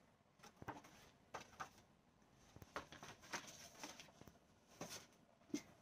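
Faint, scattered rustles and light taps of a hardcover book and its paper dust jacket being handled, about a dozen small sounds spread through a quiet room.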